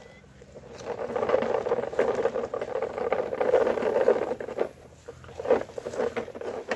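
Toy dump truck's wheels rolling and crunching over dry, gritty dirt as it is pulled along loaded with bricks. A dense crackle starts about a second in and breaks into scattered knocks after about four and a half seconds.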